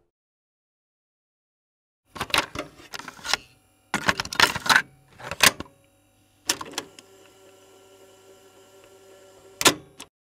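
A hand handling a loose white board against a wooden cabinet: several bursts of clattering knocks and rattles, then a faint steady hum and one sharp knock near the end.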